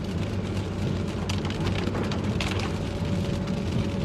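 A car driving on wet roads in heavy rain, heard from inside: steady low engine and road rumble with the hiss of rain and spray. Two brief swishes come about a second and two and a half seconds in.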